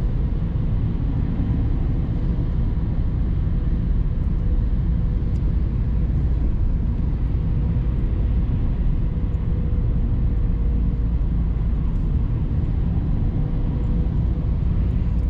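Steady road and engine noise heard inside a moving car's cabin: a low rumble with a faint steady hum.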